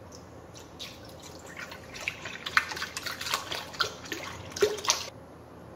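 Milk pouring from a carton into an empty stainless-steel mixing bowl, splashing unevenly, then stopping about five seconds in.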